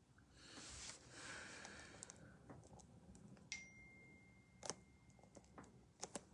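Near silence: room tone with a soft hiss in the first couple of seconds and a few small clicks, two of them close together near the end.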